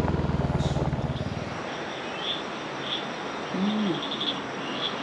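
A vehicle engine running with an even low pulsing, fading away about a second and a half in, leaving a steady hiss of rain with a few faint high chirps.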